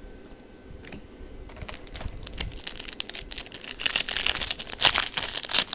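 Football trading cards and a foil card-pack wrapper being handled: quick rustling and crinkling with many small clicks. It starts about a second and a half in and grows louder toward the end.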